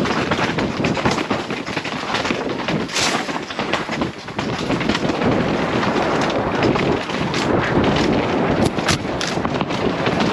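Wind rushing over a helmet-mounted camera's microphone on a fast mountain-bike descent, mixed with the rattle and knocks of the bike and its tyres over rocks and roots. Sharp knocks come through at irregular moments, a strong one about three seconds in.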